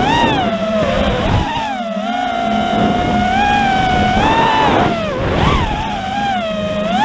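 FPV racing quadcopter's brushless electric motors and propellers whining, the pitch swooping up and down repeatedly as the throttle is worked.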